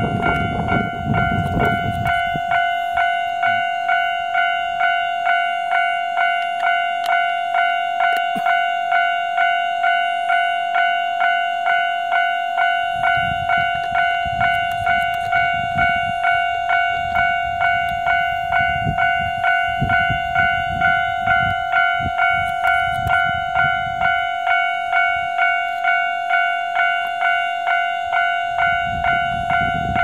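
Railway level-crossing warning bell ringing in a fast, even repeat of a single tone, the signal that a train is approaching. A low rumble rises and falls underneath for stretches.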